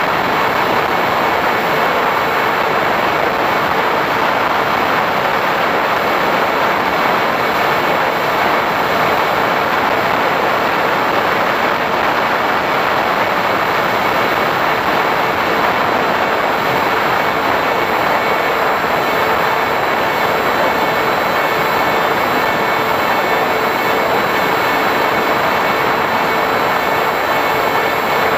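Radio-controlled A-10 model plane in flight, heard through its onboard camera: a loud, steady rush of motor noise and airflow that doesn't let up.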